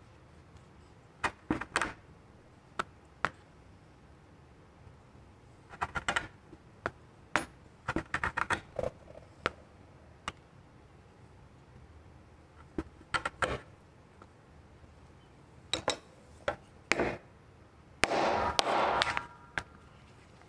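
Hand-work on a cutting mat: scattered taps and clicks as leather pieces and a metal ruler are picked up and set down, with about a second of scratchy rubbing against the leather near the end.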